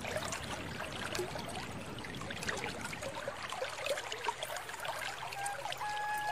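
Small forest stream trickling and gurgling steadily. A few held notes of music come in near the end.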